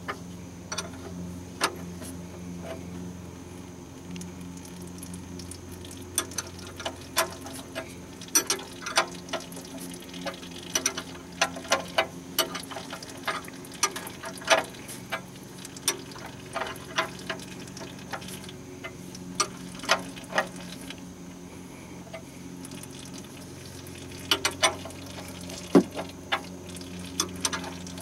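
Irregular metal clicks and taps from a combination wrench being worked on the oil drain plug of a Ford Taurus oil pan, sometimes several a second, with a steady low hum underneath.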